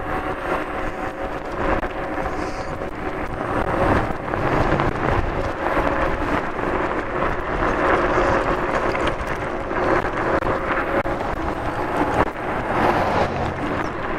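Wind buffeting the microphone and tyres rumbling over rough, cracked asphalt while a Kaabo Wolf Warrior 11+ electric scooter rides along, with knocks and rattles of road vibration coming through its firm suspension and a faint steady hum from its dual hub motors.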